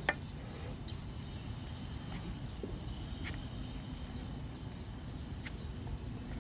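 A few sharp clicks and crunches as a farrier's flat steel blade cuts down through a donkey's overgrown hoof wall against a rubber tyre, over a steady low background rumble.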